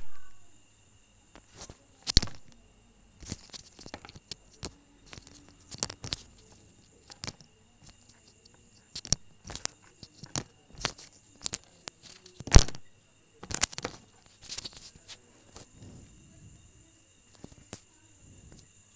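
Hot Wheels blister pack being torn open by hand: the cardboard card ripping and the plastic blister crinkling and clicking in irregular bursts, loudest about two seconds in and again around twelve to fourteen seconds.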